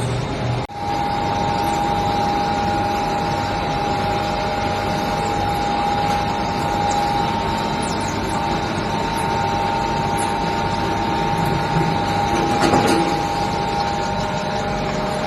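Biomass briquette machine running, compressing sawdust into 7 cm briquettes: a steady dense mechanical noise with a steady whine. There is a short drop-out under a second in and a louder clatter near the end.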